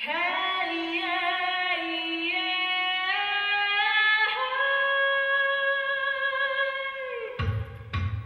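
A woman's voice singing long held notes with small ornamental turns between them, stepping up to a higher held note about four seconds in. Near the end, two deep drum hits.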